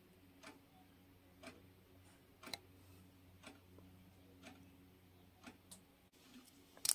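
Faint, regular ticking, about one tick a second, over a low steady hum, with a louder click right at the end.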